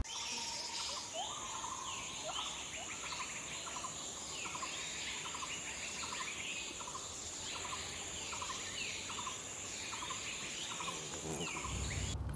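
Tropical forest ambience: a steady high-pitched insect drone, with a long series of short rising bird calls repeated more than once a second.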